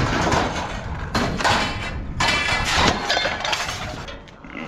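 Heavy metal object being shifted and loaded, with scraping and clanking in several noisy bursts and a faint metallic ring in some of them.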